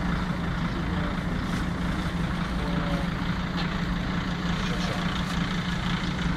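Large vehicle's engine idling steadily, a constant low hum.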